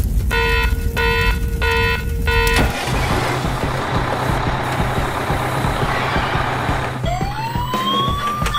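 Vehicle sound effects: four short beeps of a horn, then a noisy engine rumble with a steady low hum, and near the end a siren starting to wail upward in pitch.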